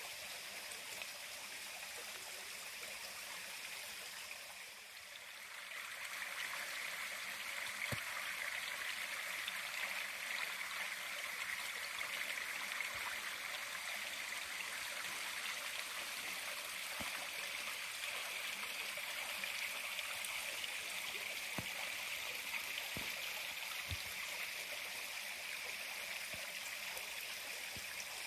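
Steady rush of a small stream or creek flowing. It dips briefly about five seconds in, then comes back louder and holds steady, with a few faint clicks now and then.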